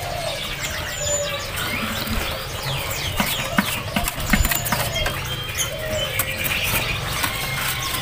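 Many caged songbirds chirping and whistling in short, overlapping calls, with scattered sharp clicks and a caged bird's wings fluttering, over a steady low hum.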